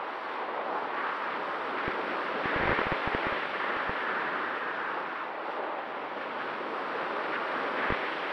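Rush of air over a Mini Talon plane in powered flight, heard on its onboard camera's microphone, with low wind buffeting thumps on the mic now and then. Under it, a faint steady tone from the electric motor and propeller running under power.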